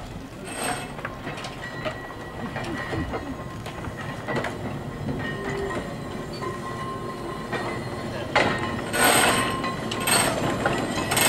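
Manx Electric Railway tram set rolling slowly past over street track, wheels clicking over rail joints and points with a thin wheel squeal. Louder clunks about eight and a half, nine and ten seconds in.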